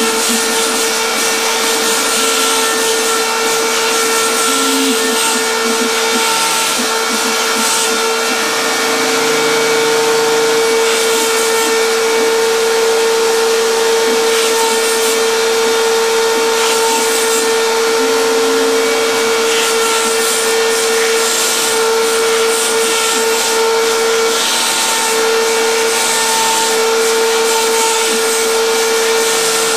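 A CNC router's high-speed spindle running steadily with a constant high whine while it cuts shapes out of a foam sheet. The drive motors add shorter low tones that start, stop and change pitch as the cutter moves from line to line.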